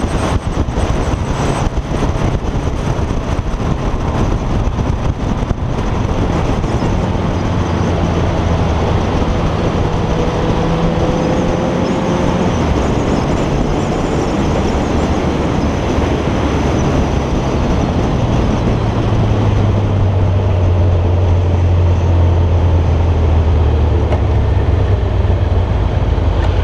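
Kawasaki ZZR motorcycle riding at speed: wind rushing and buffeting over the camera microphone, with the engine's steady hum underneath. The buffeting is strongest in the first few seconds, and about two-thirds of the way through the engine note drops lower and grows louder.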